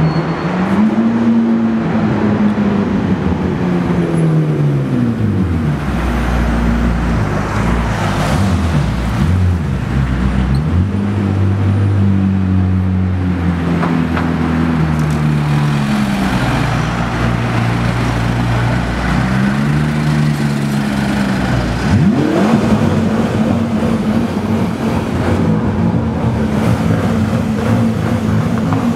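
McLaren 12C twin-turbo V8 engines running at low revs, their pitch rising and falling as the throttle is blipped, with one sharp rev about two-thirds of the way through.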